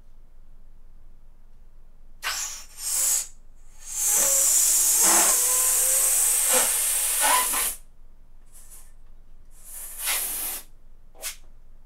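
Helium hissing out of a tilt-valve nozzle into a latex balloon as the valve is pressed: two short bursts, a long steady fill of about four seconds, then a few short top-up bursts.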